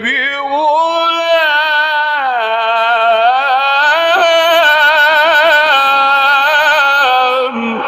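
A male Quran reciter's voice holding one long melodic note through nearly the whole stretch, with wavering ornaments and stepwise rises and falls in pitch, in the drawn-out melismatic style of tajwid recitation. The note breaks off near the end into the next word, 'bi-ghulam'.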